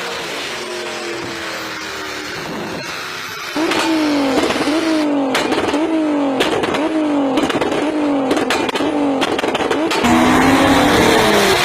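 Vehicle engine revved in quick repeated throttle blips, about one and a half a second, with sharp exhaust pops and crackles between them. It jumps louder about three and a half seconds in, and the pitch climbs again near the end.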